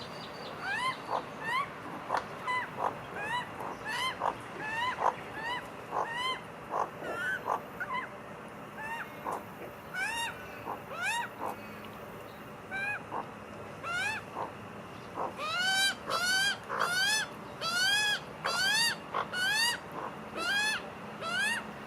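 Australian magpies calling over and over: short, nasal, rising-then-falling squawks about twice a second, growing louder and more insistent over the last several seconds.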